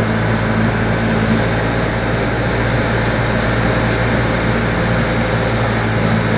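Steady engine and road noise heard from inside a small shuttle bus as it drives along, with a low, even engine hum.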